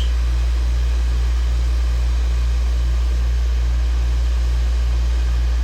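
Hot air rework station blowing: a steady hiss over a strong low hum, with a faint pulsing about two to three times a second.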